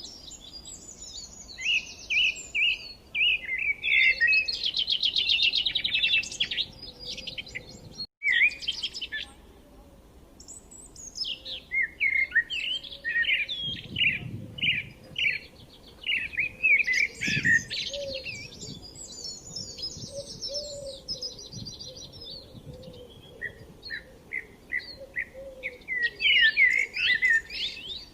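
Several forest songbirds chirping and singing together: quick trills, repeated short chirps and overlapping phrases. The sound cuts out for a moment about eight seconds in.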